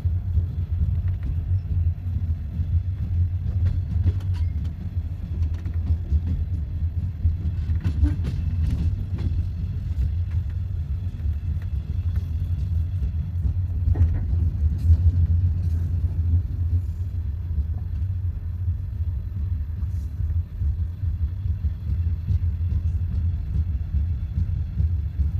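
Train running along the track: a steady low rumble with scattered faint clicks and knocks.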